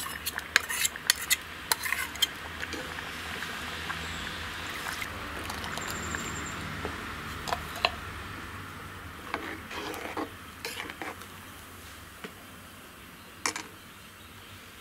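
Steel ladle stirring ground coconut paste into cooked moong dal in an aluminium pressure cooker: quick metal clinks and scrapes in the first couple of seconds as the paste goes in from the mixer jar, then a soft swishing stir with an occasional clink of the ladle on the pot.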